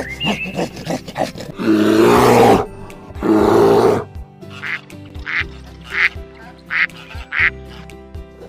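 Domestic duck quacking: two long, loud quacks, then five short quacks about two-thirds of a second apart, over background music.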